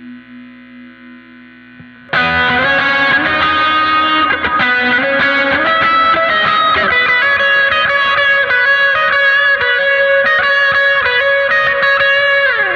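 Electric guitar played through a NUX MG-30 multi-effects unit. A faint sustained swell fades for about two seconds, then a loud lead line with drive comes in suddenly, with held notes and bends, and ends in a downward slide.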